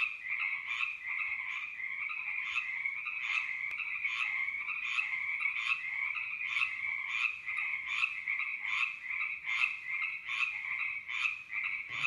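A chorus of frogs calling at once: repeated croaks about twice a second over a steady, unbroken layer of calls.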